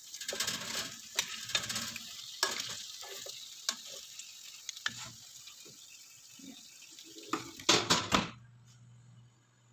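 Roast lamb pieces sizzling in a metal pan while metal tongs click and scrape against it as they are turned. About eight seconds in, a loud clatter as the oven rack slides in and the oven door shuts, leaving a low steady hum from the oven.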